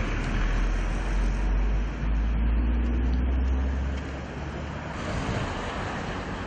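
Steady vehicle rumble with a deep low hum, which eases off about four seconds in.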